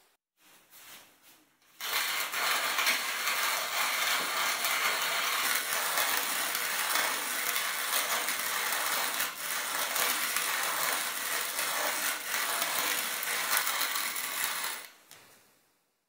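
Leinbrock's Ideal hand-cranked coffee grinder grinding whole coffee beans: a steady crunching rasp of the burrs as the crank turns, starting about two seconds in and stopping shortly before the end.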